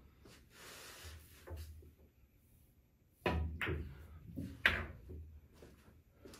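A pool cue strikes the cue ball about three seconds in, followed quickly by the clack of the cue ball hitting an object ball. About a second later comes the loudest knock, as the object ball drops into the corner pocket.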